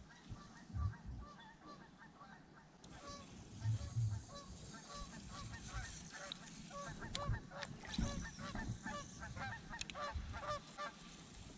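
A flock of geese honking: many short repeated calls overlapping, growing busier about halfway through. A few low thumps come in under them early on.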